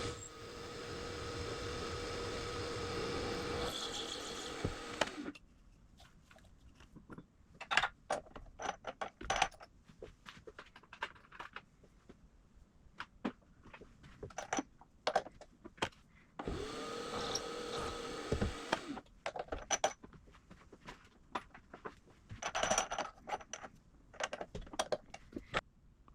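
A benchtop milling machine's motor runs steadily and shuts off about five seconds in. Scattered clicks and light knocks of metal tools and parts being handled follow. Past the middle the motor spins up again, runs for a couple of seconds and stops, and the clicks resume.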